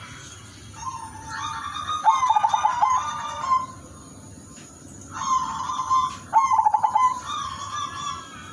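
Zebra dove (perkutut) cooing in two phrases: each opens with a quick stuttering run of short notes and goes on into longer rolling coos, the second phrase starting about five seconds in.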